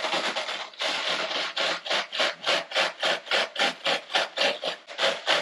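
Fingers rubbing dried breadcrumbs through a metal mesh sieve, a dry rasping scrape. It is continuous at first, then comes in quick regular strokes about four a second.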